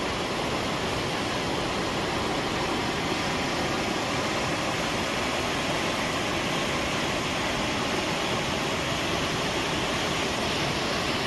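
Rushing floodwater: a steady, even roar of water.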